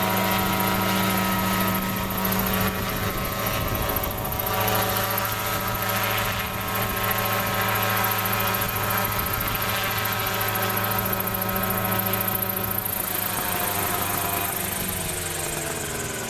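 Large radio-controlled helicopter running with a steady hum as it settles onto the ground. Over the last few seconds the pitch falls as it spools down.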